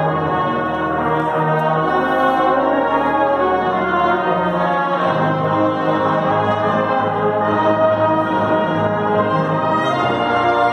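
A brass band playing slow, sustained chords, with the bass moving to a new note about halfway through.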